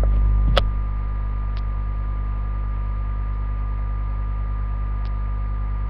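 Steady electrical mains hum with several evenly spaced tones, picked up through a webcam's microphone. There is one sharp click about half a second in, after which the deepest part of the hum drops a little, and a few faint ticks follow later.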